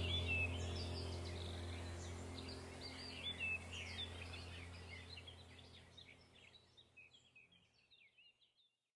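Many small bird chirps and twitters over a steady low hum, fading out evenly until silent about seven seconds in.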